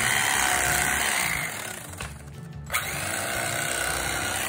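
Electric carving knife running as it saws through a fried turkey, dropping out briefly a little after two seconds in and starting again with a click.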